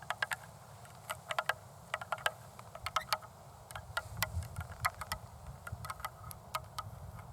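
Long acrylic fingernails tapping, an irregular run of sharp clicks that often come in quick clusters, with a low rubbing sound about four to five seconds in.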